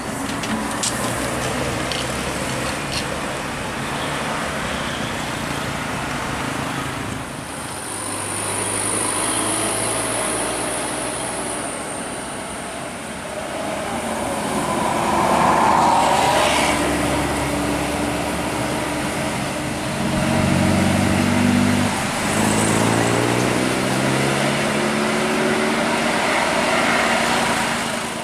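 Road traffic passing, with heavy vehicle engines running. One engine rises in pitch over the last few seconds as it pulls away.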